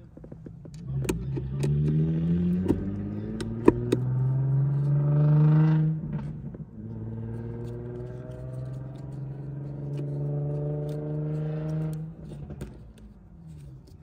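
A car engine accelerating, its pitch climbing for about five seconds, then dropping suddenly as it shifts up, running steadily and falling away near the end. A few sharp clicks sound in the first four seconds.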